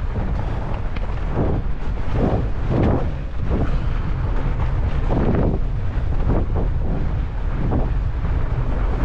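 Wind rushing over the microphone of a camera on a moving fat bike, with a steady low rumble and irregular knocks and rattles of the bike running over the trail.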